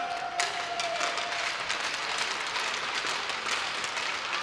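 Spectators applauding in an indoor ice rink, a dense run of clapping. A held tone fades out about a second in as the clapping starts.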